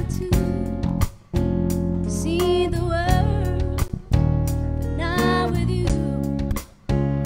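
Live band playing a slow song: strummed acoustic guitar, bass guitar and keyboard, with a woman singing a couple of wordless phrases that bend up and down in pitch. The sound drops out briefly about a second in and again near the end.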